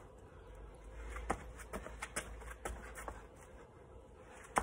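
Footfalls of a person hopping on one foot in trainers on stone paving slabs: a row of soft knocks about two a second, the loudest near the end, over a low rumble.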